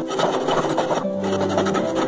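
Hand saw ripping down into the end grain of a wooden post to cut a tenon, in quick rasping strokes that stop about a second in, under classical flute-quartet music.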